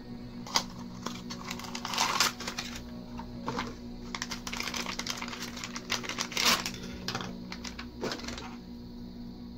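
Unboxing handling: a small cardboard box opened and a single-board computer slid out and unwrapped from its anti-static plastic bag, the bag crinkling and rustling in irregular bursts with small clicks and taps.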